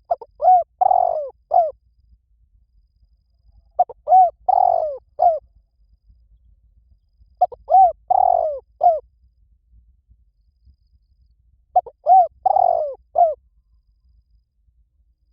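Spotted dove cooing: four phrases about four seconds apart, each a short run of coos with one longer note in the middle, lasting about a second and a half.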